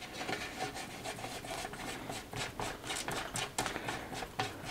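Steel birdcage flash hider being spun by hand onto an AR-15 barrel's threaded muzzle: light, irregular metal scraping with scattered small clicks.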